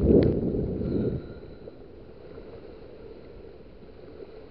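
Wind buffeting the microphone, loud and rumbling for about the first second with a sharp click near the start. It then settles to a steady, fainter low rush of wind.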